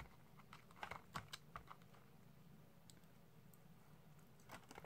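Faint scattered clicks and taps of a plastic fork picking at cheesy fries in a cardboard fry carton, mostly in the first two seconds and again near the end.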